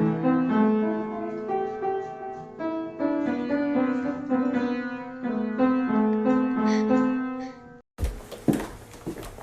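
Piano music, a melody over chords, that cuts off suddenly near the end; a noisy stretch with a few sharp knocks follows.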